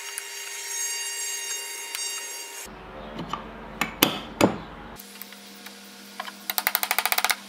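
Two sharp metal knocks about four seconds in, then near the end a hammer tapping a pin punch in a quick, even run of light strikes, driving a pin into the hub of a lathe tailstock's handwheel.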